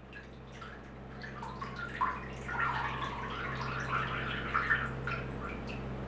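Brine splashing and dripping in a cheese brine bath as round cheese wheels are moved and lifted out by hand, the liquid running off them back into the tank, over a steady low hum.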